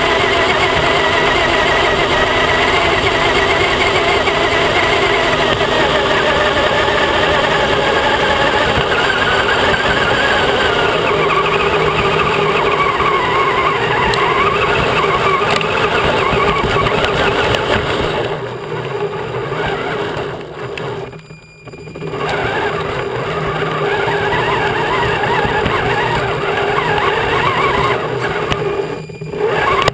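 Electric radio-controlled truck's motor and gears whining, the pitch rising and falling with the throttle. The whine drops away briefly about two-thirds of the way in and again near the end.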